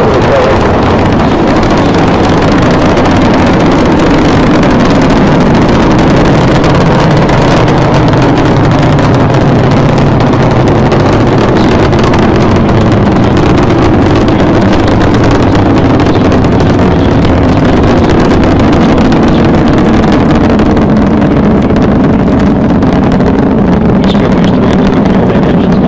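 Space Shuttle launch: the solid rocket boosters and main engines make a loud, continuous rumble full of crackling as the vehicle climbs.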